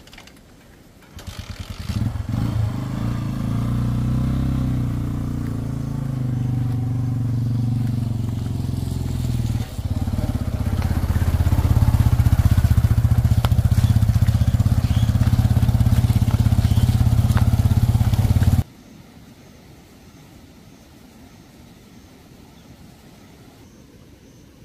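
Single-cylinder TVS Apache motorcycle engine pulling away and running up a rough dirt track. The engine comes in about a second in, drops briefly about ten seconds in and then runs louder. It cuts off suddenly about eighteen seconds in, leaving only a faint outdoor background.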